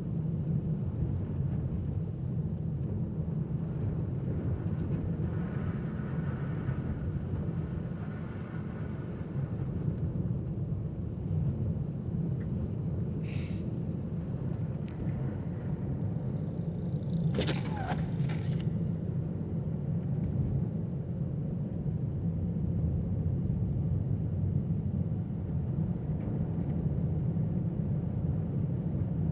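A car driving at steady speed, its engine and tyre noise making a continuous low rumble. A couple of brief higher-pitched sounds come about halfway through.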